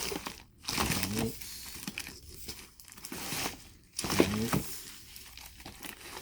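Packing material crinkling and rustling as graded comic books are handled and unpacked from a shipping box, with two brief louder pitched sounds, about one second in and about four seconds in.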